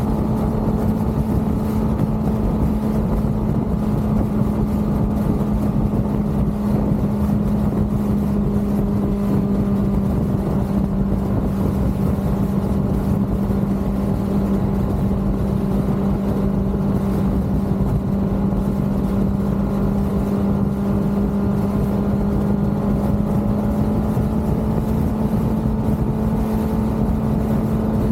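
Kawasaki ZX-6R's inline-four engine running at a steady cruise. Its tone holds at an almost constant pitch over a steady rush of wind and road noise.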